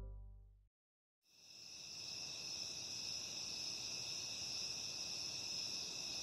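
A steady, high-pitched chorus of crickets and other night insects chirring without a break, coming in about a second in.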